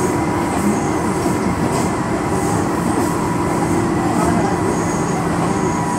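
Tobu electric train running along the track, heard from inside the front car: a steady, unbroken rumble of wheels and running gear with a few faint steady tones over it.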